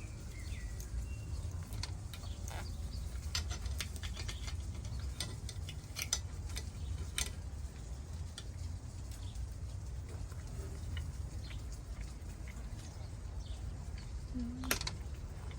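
Scattered light clicks and taps of tableware during a meal, over a steady low rumble, with a brief pitched squeak near the end.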